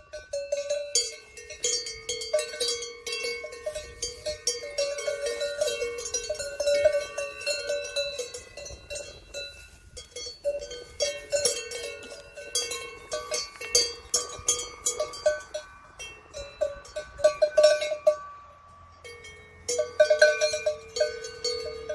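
Cowbells clanking in an irregular, jangling rhythm, with several bells ringing at slightly different pitches, and a short lull a bit past the middle.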